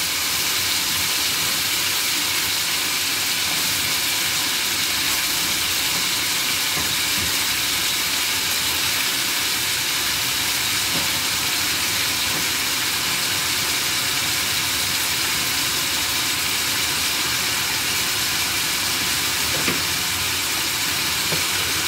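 Diced carrot and chayote sizzling in oil in a frying pan: a steady, even hiss that does not change.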